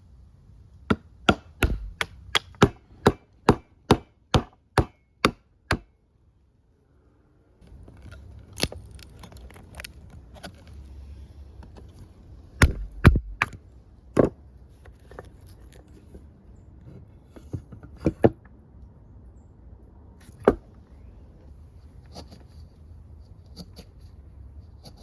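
Hand chisel being struck to chop waste wood out of a joint: a quick run of about a dozen sharp, evenly spaced blows, two or three a second, then after a short break a few scattered strikes.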